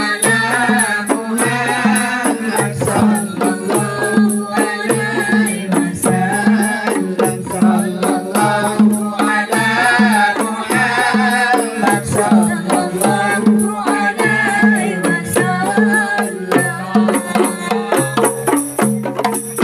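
A group of women beating rebana frame drums in a steady, dense rhythm while singing together.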